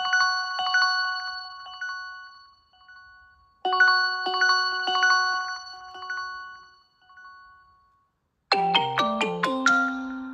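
Huawei P60 Pro ringtones: a short bell-like chime phrase of high ringing notes, played twice with a brief pause between. About two seconds before the end a different ringtone starts, a quicker run of lower, shorter notes.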